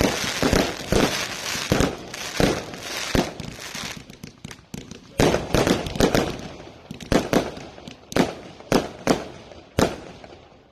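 Fireworks going off: a dense run of crackling and bangs that dies away over the first few seconds, then single sharp bangs at irregular intervals.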